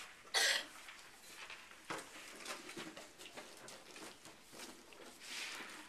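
Light scuffling and rustling of children moving on a hard floor, with scattered soft taps, a short hiss about half a second in and a softer one near the end.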